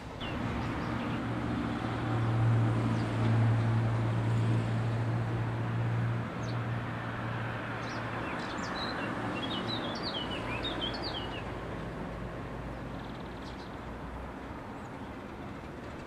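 Diesel engine of a BDŽ class 87 diesel-electric locomotive running with a steady low drone as it passes, fading after about six seconds. After that a fainter steady diesel hum from a second, distant locomotive, with birds chirping for a few seconds in the middle.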